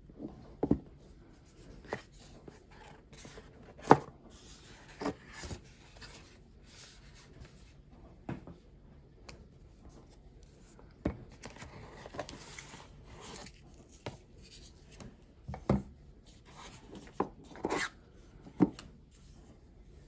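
Unboxing handling noise: the hair dryer and a plastic nozzle attachment lifted out of a cardboard box, with scattered knocks and taps of plastic against card and the wooden table, and soft rubbing of card in between. The loudest knock comes about four seconds in.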